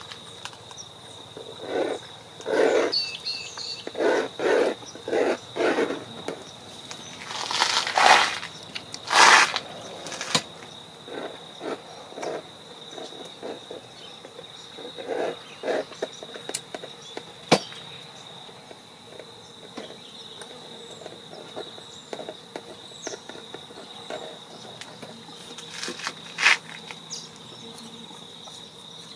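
Pencil sketching on a primed painting board: a run of short scratching strokes, densest and loudest in the first ten seconds, then sparser. Behind it, insects keep up a steady high-pitched trill.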